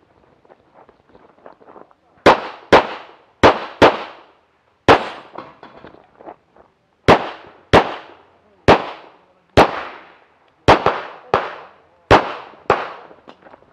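Tanfoglio Limited semi-automatic pistol fired rapidly, about a dozen sharp shots from about two seconds in, mostly in quick pairs (double taps on each target) with short pauses between. Each shot rings out briefly. Softer clicks and rustling come before the first shot, and again in a lull near the middle.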